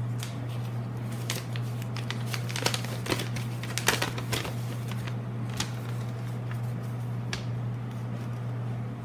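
A folded paper leaflet being unfolded and handled: a run of crisp rustles and crackles, thickest in the middle and loudest about four seconds in, with a few more later, over a steady low hum.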